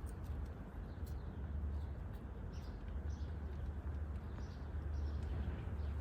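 Outdoor ambience: a steady low rumble, with faint bird calls several times and a few soft ticks.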